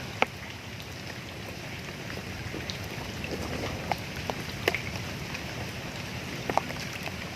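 Steady hiss of outdoor noise, like light rain, with a few separate sharp clicks scattered through it.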